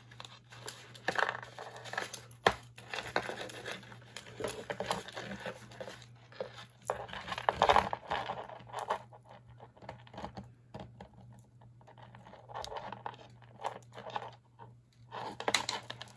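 Hands rummaging through a box of costume jewelry: irregular rustling and crinkling with small clicks and rattles of chains and beads, loudest about eight seconds in.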